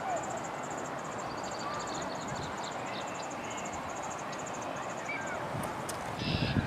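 Outdoor lakeside ambience with birds calling: a high chirping trill repeating about three times a second over a steady background hiss, with a few short whistled calls. A low rumble rises near the end.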